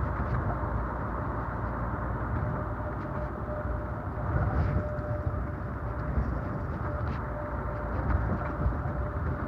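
Steady road and running noise of a vehicle travelling along a highway: a continuous rumble with a faint steady hum over it.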